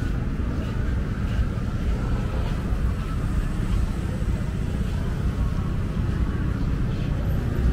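Heavy street traffic, mostly motorbike and car engines running past, giving a steady low rumble.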